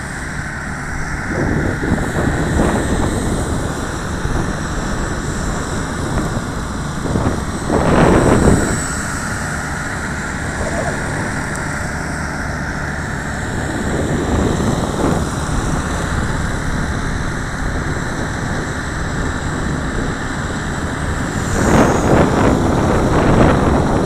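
Gusts of strong wind buffeting the microphone, strongest about a third of the way in and again near the end, over the steady high whine of a T-Rex 450 Pro flybarless electric RC helicopter flying overhead.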